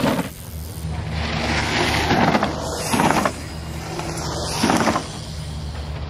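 Mountain bikes on a dirt-jump track: a steady rumble of tyres rolling on packed dirt, broken by four short loud rushes of noise from the riders hitting the jumps, at the start and at about two, three and nearly five seconds in.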